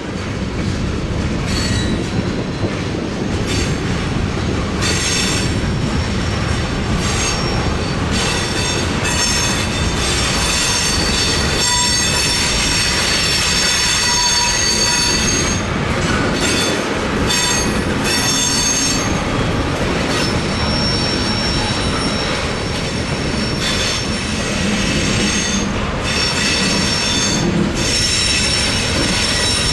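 Freight cars of a slow-moving train rolling past, with a steady rumble of steel wheels on the rails. A high-pitched wheel squeal comes and goes throughout.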